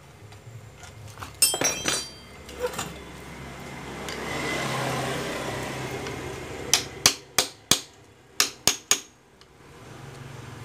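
Metal hand tools clinking and knocking during a scooter engine teardown: a few clinks about a second and a half in, a hiss that swells and fades in the middle, then a quick run of about seven sharp metallic taps with a short ring.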